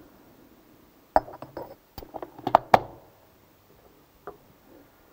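Light metallic clinks and knocks as the new metal driven-unit cover of an RS800 CVT transmission is handled and set down onto the unit's shaft, clustered between about one and three seconds in, with one more faint click near the end.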